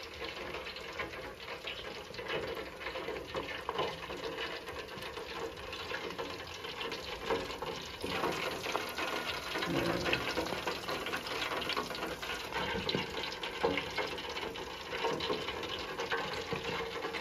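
Boneless chicken deep-frying in a tabletop auto-lift fryer, hot oil bubbling and crackling steadily under the closed lid with the basket submerged, steam venting through the lid gaps.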